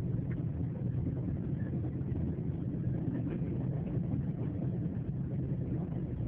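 Train running past with a steady, deep rumble, and faint brief higher-pitched sounds now and then.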